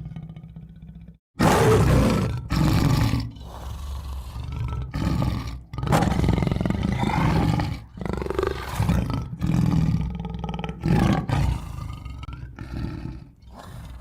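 Tiger roaring and growling in a string of about ten rough calls, each a second or so long with short breaks between, starting suddenly about a second and a half in.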